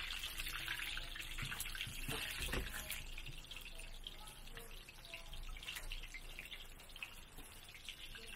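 Stuffed scallion pancakes deep-frying in a wide wok of hot oil: a steady sizzle of bubbling oil.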